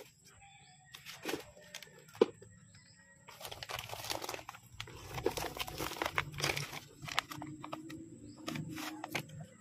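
Hands handling philodendron plants: a sharp knock or two, then several seconds of continuous crinkling and rustling.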